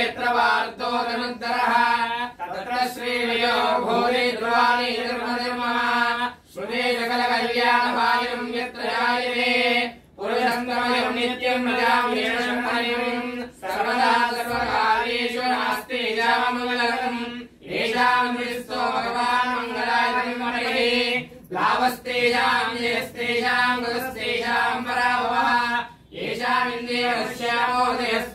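Sanskrit Vedic mantras chanted on a near-steady held pitch, in phrases of about three to four seconds broken by short breaths.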